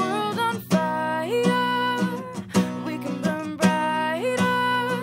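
Background music: a strummed acoustic guitar with a sung melody.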